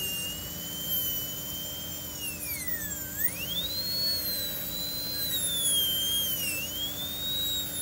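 High-speed dental handpiece with a diamond bur whining as it cuts an acrylic typodont tooth dry, without water spray. Its pitch sags sharply about three seconds in and again more slightly near the end as the bur bears on the tooth, then climbs back when the pressure eases.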